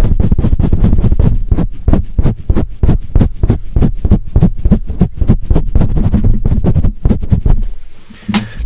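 Fast, aggressive rubbing or tapping strokes made directly on a microphone, about six a second in a steady rhythm, each a short muffled thump. They stop about seven and a half seconds in.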